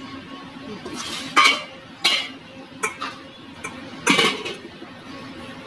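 A steel spoon clinking and scraping against a stainless steel bowl while scooping cooked broken rice. There are four sharp clinks about a second apart, and the last is the loudest.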